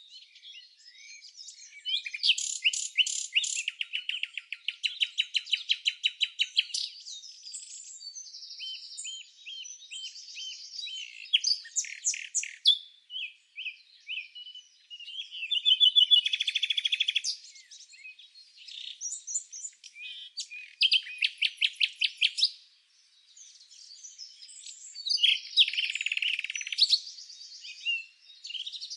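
Songbirds chirping and singing: bouts of rapid, high trills and chirps lasting from under a second to a few seconds, with short pauses between them.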